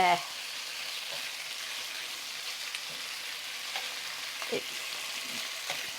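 Small cornstarch-coated chicken pieces sizzling steadily in hot sesame oil in a skillet, with a few light scrapes from a small spatula turning them.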